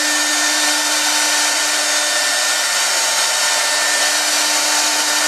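Multi-spindle CNC router carving a wave pattern into a wood board: the high-speed router spindles run with a steady hum under a constant hiss of the bits cutting.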